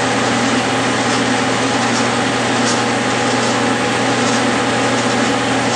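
Clausing metal lathe running at speed with a steady motor and drive hum, as a No. 2 center drill in the tailstock drill chuck bores into the end of a spinning hex bolt.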